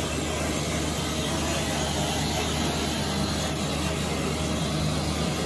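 Work truck's engine running steadily, a low hum under a wash of noise, while its winch line draws old underground power cable up out of the vault.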